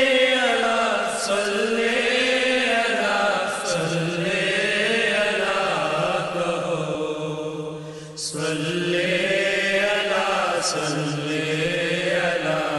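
Devotional chanting of an Urdu naat in praise of the Prophet: a voice holding long, slowly gliding notes. It pauses briefly about eight seconds in and starts a new phrase.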